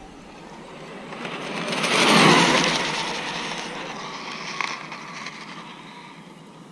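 Arrma Limitless V2 RC speed car on a high-speed pass: the brushless motor and foam tyres on asphalt swell to a peak as it rushes by about two seconds in, then fade as it runs away down the lot. A single sharp click about four and a half seconds in.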